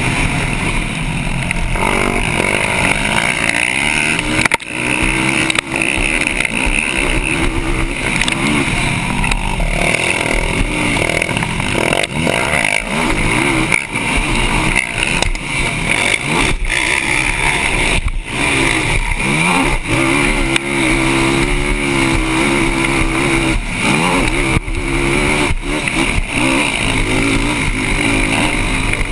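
Yamaha YFZ450R quad's single-cylinder four-stroke engine at racing speed, its pitch climbing and dropping again and again as the rider opens and shuts the throttle through the gears, heard from a helmet-mounted camera.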